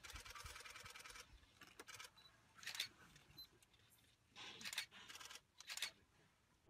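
Near silence with a few faint, brief bursts of noise scattered through it.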